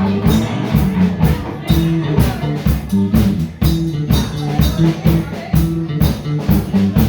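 Live band playing: a drum kit keeps a steady, quick beat under guitar.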